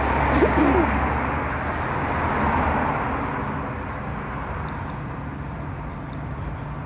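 Bus engine running close by: a steady low drone under a rushing noise, loudest in the first three seconds and then easing off.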